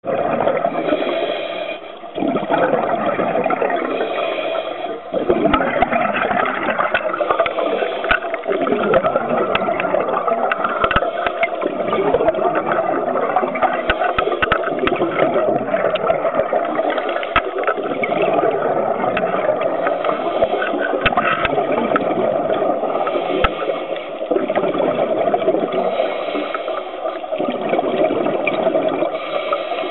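Scuba diver's exhaled bubbles gurgling and rushing, heard muffled through an underwater camera housing. The noise is continuous and loud with a few short lulls, and has scattered faint clicks.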